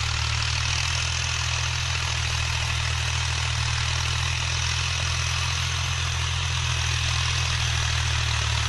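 Tractor engine running at a steady pace, a deep constant drone with a wide rushing noise above it, as it drives a rotavator.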